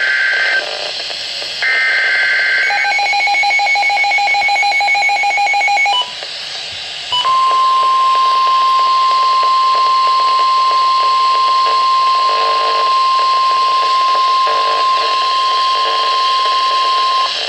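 Emergency Alert System tones: two short buzzing digital header bursts, then a fast pulsing beep for about three seconds. After a brief drop comes the single steady NOAA Weather Radio warning alarm tone, held for about ten seconds, which announces a tornado warning.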